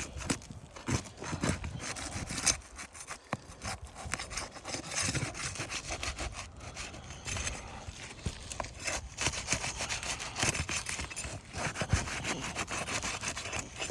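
Flat pry bar being worked under asphalt shingles to break them loose, in repeated scraping, rasping strokes with occasional sharp clicks.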